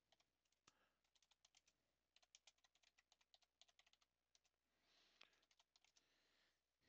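Very faint computer keyboard typing: scattered keystrokes in short runs, with a pause of about half a second between the two main runs.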